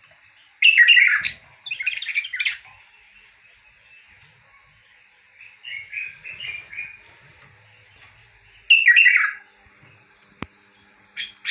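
Caged songbirds singing in short bursts of loud chirpy phrases, four bursts with pauses between them, and a brief click near the end.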